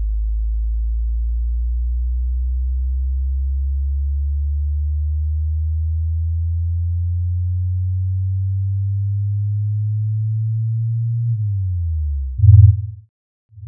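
Synthesized low electronic tone rising slowly and steadily in pitch, a power-up sound effect for a filling loading bar; near the end it dips briefly and gives way to two short, loud, low pulses.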